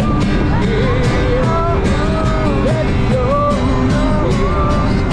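Worship song playing: a singer's melody held and gliding between notes over a full band accompaniment.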